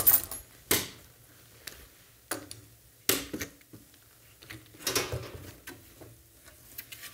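Locking C-clamp and bar clamp being released, then the aluminum motor mount plates and brackets handled on the table: a handful of separate metallic clacks and rattles, the loudest in the first second.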